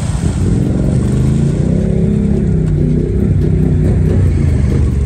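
Snorkeled Honda 420 ATV's single-cylinder engine revving hard and unevenly as the quad pushes through deep muddy water. The revs climb about half a second in.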